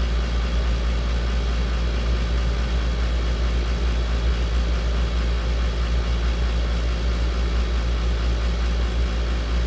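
A steady, loud, low mechanical drone, like an idling engine, with no change in level.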